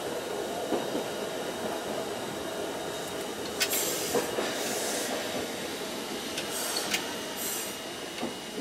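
Fukui Railway 770-series tram running along street track, heard from inside the cab: steady running noise from wheels and motors, with a few sharp clicks and short high-pitched hisses or squeals in the middle.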